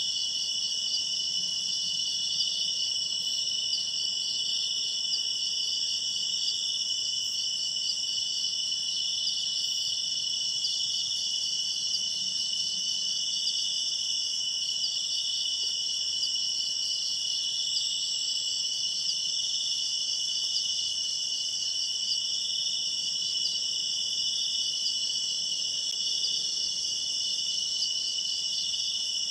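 Steady chorus of crickets and other night insects: a continuous, high-pitched trilling that does not let up.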